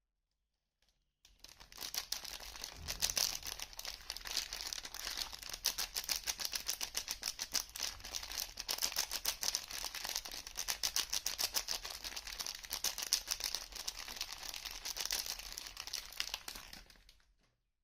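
Soap packaging crinkling and tearing as it is unwrapped by hand: a dense run of rapid crackles that starts about a second in and stops just before the end.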